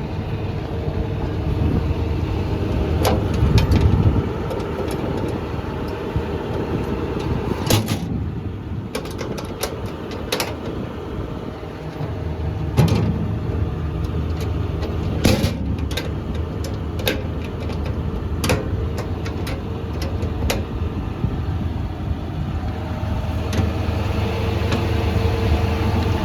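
John Deere 210G LC excavator's diesel engine idling steadily, with occasional sharp clicks and knocks over it.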